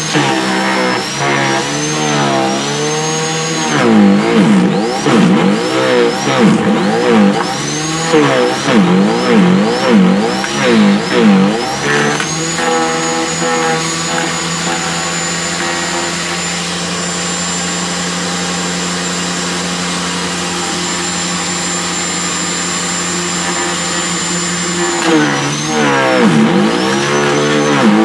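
Sterwins 2500 W electric garden shredder running with a high motor whine. Its pitch dips and recovers again and again as branches are forced into the blade disc, with the wood crackling as it is chewed. It runs steady and unloaded through the middle stretch, then bogs down under load again near the end.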